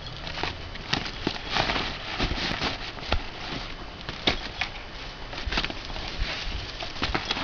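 A cat batting and pulling at a snack-package string: irregular rustling with light scratchy clicks, no meowing.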